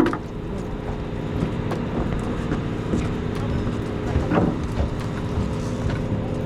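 Sportfishing boat's engine running steadily, with a few knocks and clicks on deck, one louder about four seconds in.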